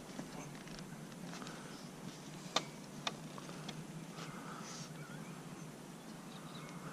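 Faint handling noise from tugging at a baffle stuck inside a motorcycle exhaust muffler, with two sharp clicks about two and a half and three seconds in, and a few softer ticks and scrapes.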